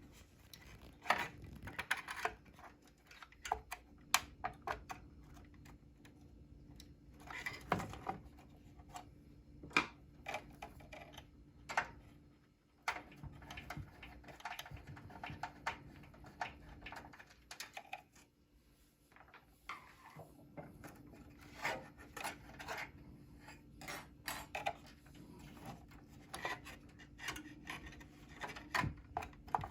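Irregular clicks, knocks and rubbing of hard plastic and metal parts being handled while a graphics card is installed in a PC, over a faint steady hum.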